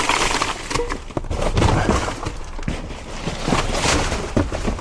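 Rummaging through trash in a dumpster: bags and packaging rustling and crinkling, with many clattering knocks as items are moved.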